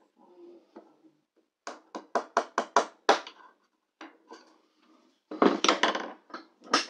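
Small metal tool clicking and tapping against a guitar's tuning machines as they are worked loose: a quick run of about seven taps, then a dense cluster and a last tap near the end.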